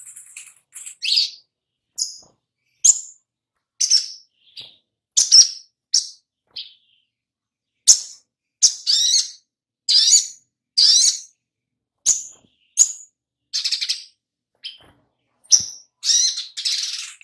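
Little spiderhunter (sogok ontong) giving short, sharp high chirping calls in an irregular series, roughly one every second, sometimes two in quick succession.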